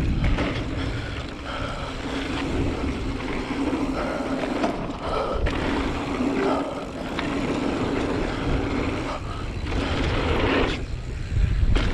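Mountain bike riding fast down a dirt jump trail: wind buffeting the microphone over the rumble of knobbly tyres rolling on packed dirt and gravel, with the bike rattling. The noise dips briefly a few times.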